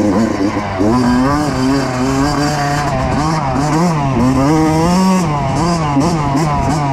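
Kawasaki KX85 two-stroke dirt bike engine being ridden hard, its revs climbing and dropping again and again as the rider works the throttle and gears.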